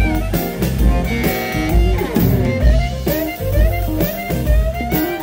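Live electric blues band: amplified harmonica played through a hand-held microphone over electric guitar, bass and drums keeping a steady beat, with bending, sliding notes.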